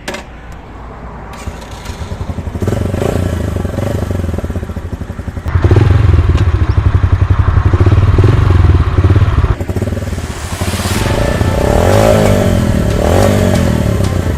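Yamaha YBR 125G's single-cylinder four-stroke engine pulling hard as the motorcycle accelerates, getting louder in steps, with a sudden jump about five and a half seconds in and a short dip near nine and a half seconds. Wind rushes over the microphone as speed builds.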